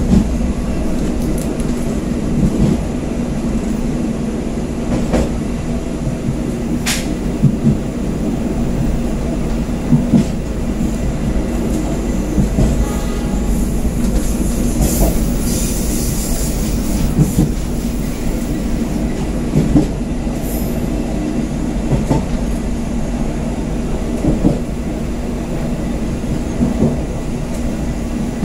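Passenger train carriage running along the rails, heard from the rear of the train: a steady rumble with a knock about every two and a half seconds as the wheels cross rail joints.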